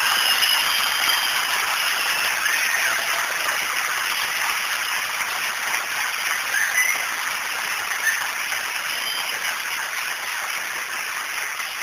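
Audience applauding at length, a steady dense clatter of clapping that slowly eases off.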